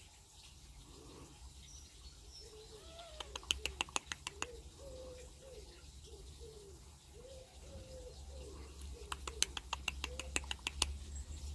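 A pigeon cooing: a long series of short, low, rolling coos, with two runs of rapid clicks.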